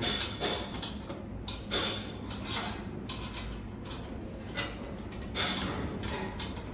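Irregular clicks, knocks and scrapes of hand work on an Adirondack chair as its last screws are tightened.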